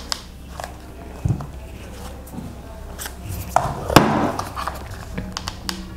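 Handling noise from hot-gluing a felt rose with a glue gun: scattered soft clicks and taps, with a sharper knock about four seconds in.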